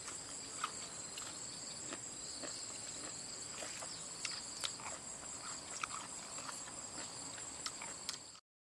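Steady high-pitched chorus of insects such as crickets, with scattered small clicks and rustles of hands handling jackfruit on a banana leaf; it all cuts off suddenly near the end.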